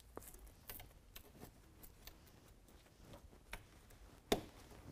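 Hands fitting a soft top's fabric and fasteners: scattered light clicks and fabric handling, with one sharp click about four seconds in as a snap is pressed shut.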